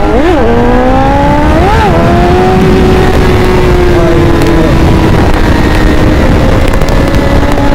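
Superbike engine at speed under heavy wind rumble. The engine pitch jumps up and back down twice in the first two seconds as the throttle is blipped, the light pump used to lift the front wheel into a wheelie. The pitch then climbs steadily as the bike pulls.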